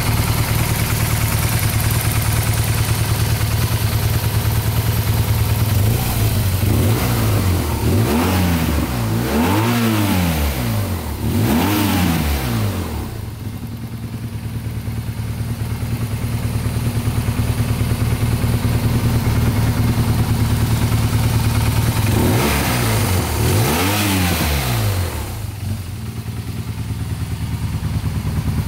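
BMW R1200GS Adventure's flat-twin boxer engine idling. Its throttle is blipped three times about a third of the way in and twice more later, and the revs rise and fall back to idle each time.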